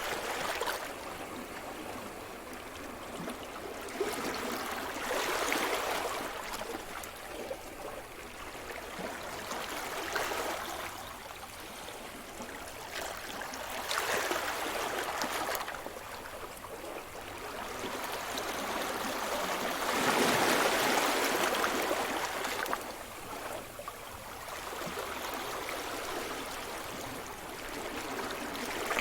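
Sea surf: small waves breaking and washing up the shore one after another, a rushing hiss that swells and fades every few seconds. The largest wave comes about twenty seconds in.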